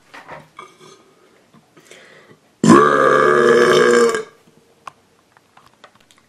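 One long, loud human burp at a steady pitch, lasting about a second and a half and starting a little under three seconds in, after a couple of seconds of faint small noises.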